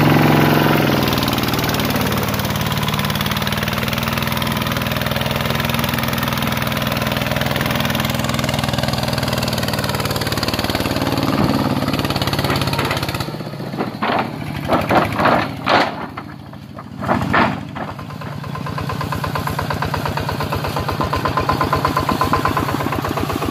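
The single-cylinder diesel engine of a two-wheel walking tractor chugging steadily while it hauls timber, its drive wheel churning through mud. About halfway through, the steady running breaks into a few separate loud bursts before settling back into an even chug.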